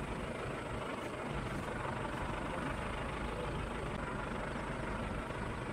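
Steady engine and tyre noise of a vehicle driving slowly along an unpaved road.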